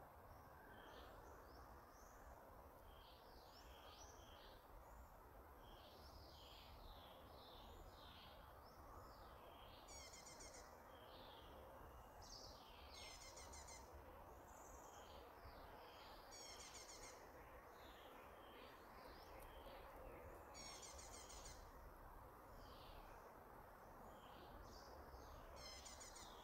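Faint birdsong: several small birds chirping and whistling, with a short, rapid trill repeated five times, every three to five seconds, over a low steady background rumble.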